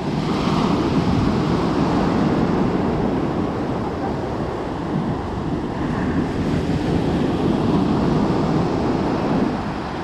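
Surf of a choppy sea breaking and washing up a pebble beach, the rush of water swelling and easing as the waves come in.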